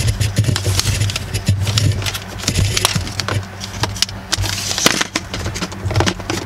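Handling noise from electrical wires being fed through a plastic console trim piece: irregular small clicks, scrapes and rustles, over a steady low hum.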